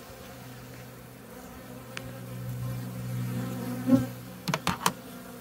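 Honeybees buzzing around an opened hive: a steady hum that swells a few seconds in. A few sharp clicks follow near the end.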